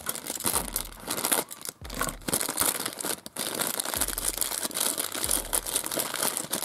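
Thin plastic toy packet being crinkled and torn open by hand: a dense crackling in several spells with brief pauses.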